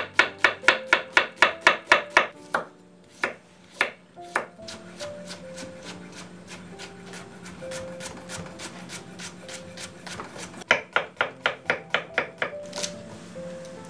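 Chef's knife chopping on a wooden cutting board: a quick run of strokes, about five a second, julienning onion, then lighter, steady strokes cutting carrot into matchsticks, and a louder run of cuts through cucumber near the end. Soft background music underneath.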